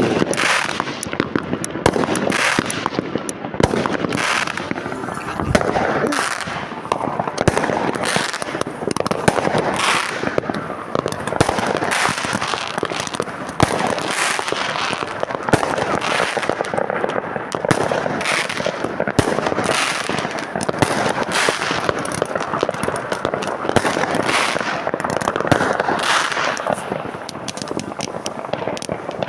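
Many fireworks and firecrackers going off at once: a continuous din of overlapping bangs and crackling with no pause.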